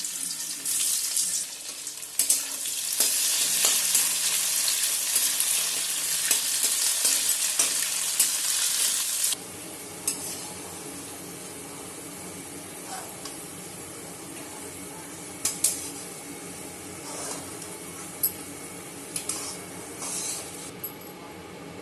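Onions frying in hot mustard oil in a kadai: a loud sizzle that drops suddenly to a quieter frying hiss about nine seconds in. A spatula stirring gives scattered scrapes and taps against the pan.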